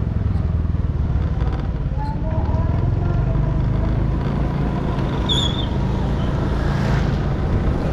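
Motorcycle engine running steadily with road noise while riding on wet asphalt. A brief high chirp sounds about five seconds in.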